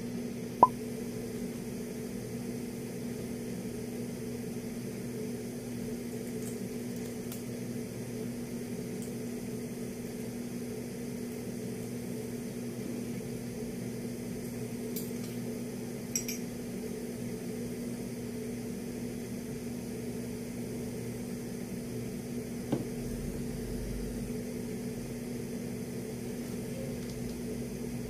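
Steady low electrical hum, with a sharp click about half a second in and a few faint clicks and a knock later.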